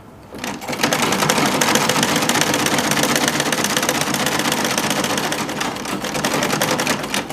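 Old Butterfly domestic sewing machine stitching a zip in place at speed: a fast, even clatter of the needle mechanism that starts about half a second in and stops abruptly near the end.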